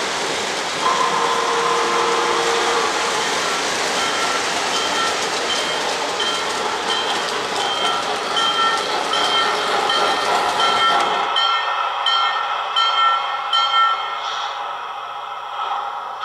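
O-gauge model steam train running on three-rail track, with the rumble and hiss of the locomotive and its electronic sound system. From about 4 s in a bell rings roughly once a second. The running noise cuts off abruptly about 11 s in, and the bell carries on by itself.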